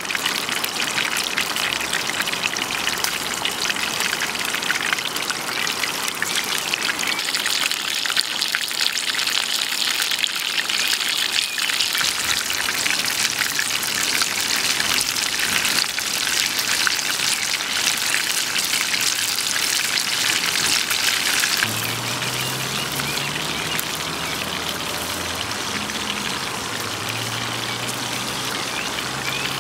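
Beef patties in bell pepper rings sizzling and spitting in hot oil in a frying pan over a wood fire. The sizzle drops back and becomes quieter about two-thirds of the way through.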